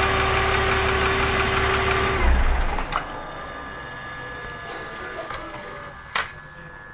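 BMW M54B22 inline-six running with a steady whine near the intake manifold, a noise the owner links with vacuum-leak fault codes. About two seconds in, the engine stops with a thud and the whine cuts out. Afterwards a few faint clicks are heard.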